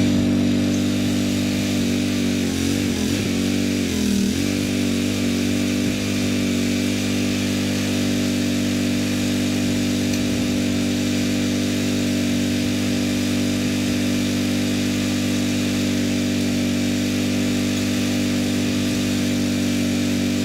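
Boxer 320 mini skid steer's engine running steadily; its note wavers and dips briefly a few seconds in.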